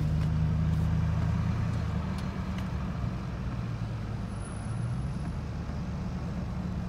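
Low, steady engine and road drone of a car driving slowly in freeway traffic, heard from inside the cabin.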